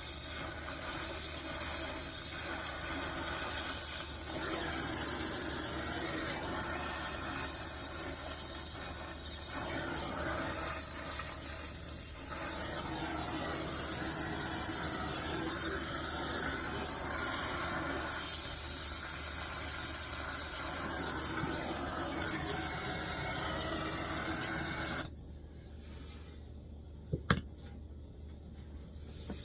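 Brazing torch flame hissing steadily while a copper refrigerant line joint is brazed at the coil cabinet. The torch cuts off suddenly near the end, followed by a single click.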